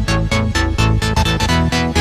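Background electronic dance music with a steady, fast beat.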